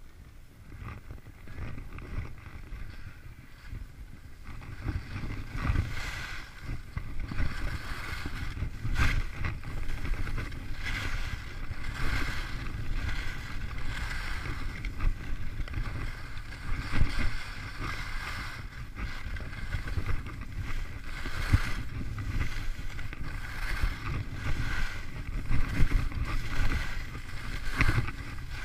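Skis running down a groomed slope: wind rushing over the microphone and the skis hissing and scraping on packed snow, swelling and fading with each turn. It grows louder about five seconds in as speed builds.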